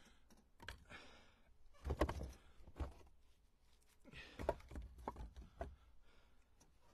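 Split seasoned red oak firewood pieces knocking against each other as they are set one by one onto a stack in a pickup truck bed. The wooden clunks are scattered, with the loudest cluster about two seconds in and a few more in the second half.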